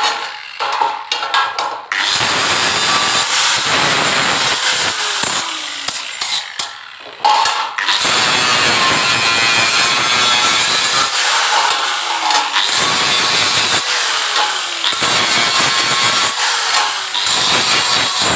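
Handheld angle grinder grinding the welded corners and edges of a small steel-tube frame, the disc scraping on the metal. The grinding pauses briefly near the 2-second and 7-second marks as the disc comes off the work, then resumes.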